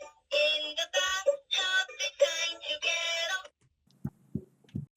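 A short sung jingle in a high, synthetic-sounding voice, typical of an electronic toy, lasting about three and a half seconds. A moment later, low heartbeat thumps start at a steady pace over a faint hum: the toy doctor set's heartbeat sound effect.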